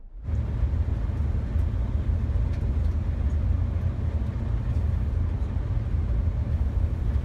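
Steady low rumble of a vehicle on the move, road and engine noise heard from inside the cabin, cutting in suddenly at the start.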